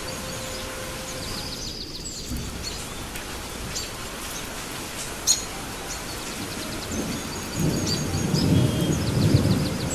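Steady rain with thunder: a low rolling rumble builds about three quarters of the way in and is loudest near the end. A single sharp crack comes about halfway, and faint high chirping sounds over the rain.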